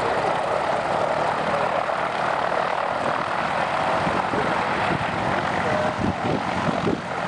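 Twin piston engines of a propeller aircraft running steadily on the ground, a continuous drone. About halfway through, low rumbling buffets of prop wash or wind hit the microphone.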